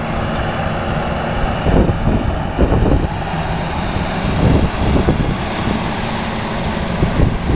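Versatile 9482 tractor's 310 hp Cummins diesel running steadily under heavy load, pulling a Sunflower disc chisel through the soil, with a dense rumble of engine and tillage noise.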